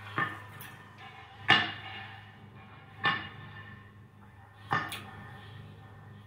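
Four sharp struck hits about a second and a half apart, each ringing briefly with several tones, over a low steady hum; the second hit is the loudest.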